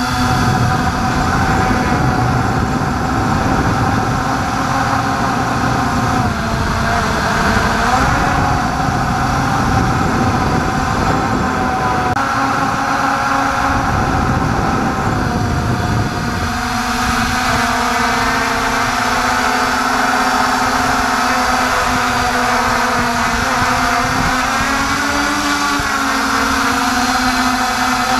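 MJX Bugs 3 quadcopter's brushless motors and propellers whining, picked up by the camera slung beneath it, over a rushing noise. The several tones drift up and down in pitch as it flies and climbs; about sixteen seconds in the rushing lessens and the tones hold steadier.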